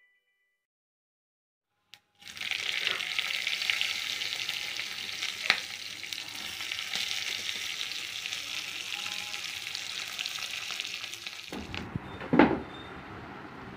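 Seeds and green chilli frying in hot oil in a small tempering pan on a gas burner: a dense, steady sizzle with spluttering crackles, starting about two seconds in. It cuts off abruptly near the end, leaving a low background with a single knock.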